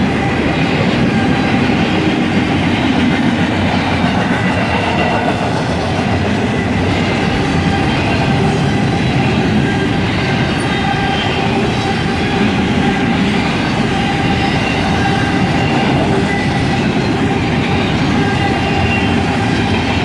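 Double-stack intermodal freight train's cars rolling past at speed: a loud, steady rumble and rattle of steel wheels on the rails.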